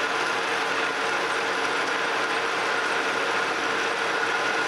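Metal lathe boring out a metal sleeve with a carbide-insert boring bar: a steady cutting noise with a steady whine over it, on a light finishing pass taking the last few thousandths out of the bore. The sound stops suddenly just before the end.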